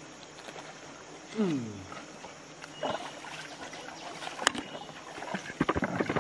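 Steady rush of a flowing river over shallow rapids, with a short downward-gliding call about a second in and several sharp knocks near the end.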